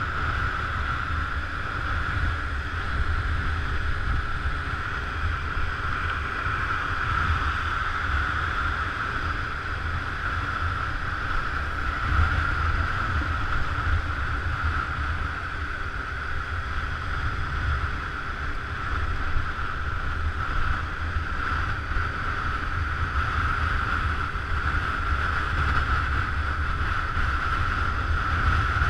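Motor scooter riding at a steady speed, with heavy wind rumble on the microphone and a constant high whine running throughout.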